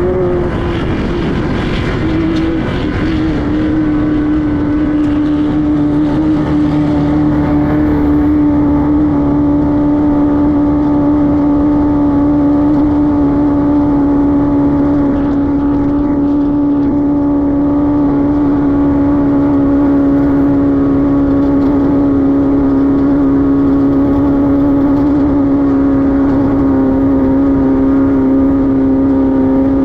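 Race car engine, the air-cooled 1600 cc VW flat-four of a Class 5-1600 off-road car, running at a steady, sustained pace. Its note wavers briefly about two seconds in, then holds and slowly sags a little lower.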